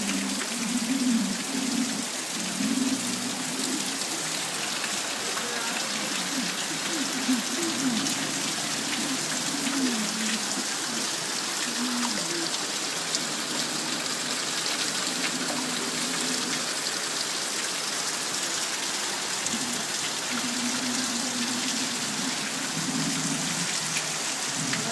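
Steady heavy rain with an even hiss of falling water, faint voices under it.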